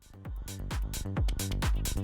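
Smartphone alarm tone playing an electronic dance beat with a deep kick drum and a steady rhythm. It starts right at the beginning and swells in quickly.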